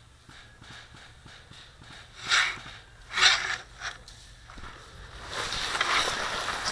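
Footsteps crunching through dry leaves and brush, a few separate steps and then a longer stretch of rustling toward the end.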